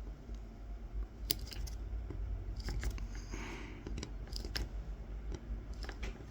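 Kolrosing knife tip scoring fine lines into a wooden coffee scoop: short scratchy cuts and sharp little clicks, irregularly spaced, as the blade bites and lifts from the wood.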